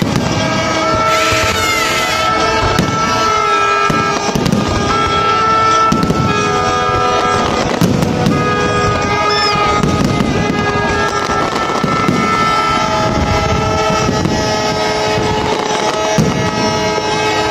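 Aerial fireworks bursting and crackling in quick succession, over long held tones at several pitches that change every second or two.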